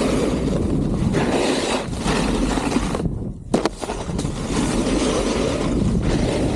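Snowboard carving fast down a groomed piste: the board scraping over packed snow, mixed with wind rushing on the microphone. A little past halfway the scraping drops out for a moment, then comes back with a couple of sharp knocks.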